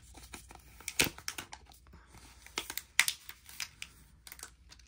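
Protective film wrap being peeled off a new smartphone: a string of short crackles and rustles, with sharper snaps about a second in and about three seconds in.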